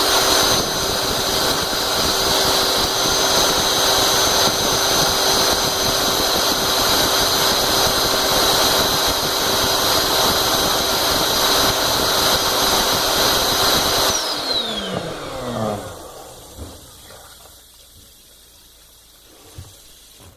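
Electric air-mattress inflator pump running loud and steady with a high whine, its air blast driving a fidget spinner. About 14 seconds in it is switched off and winds down with a falling whine, leaving only faint sounds.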